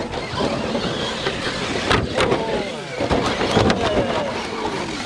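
Electric motors of RC rock crawlers whining, the pitch rising and falling with the throttle, as the trucks climb over rocks. Sharp plastic knocks about two seconds in and again past three and a half seconds come as the trucks tumble over and land on their roof and side.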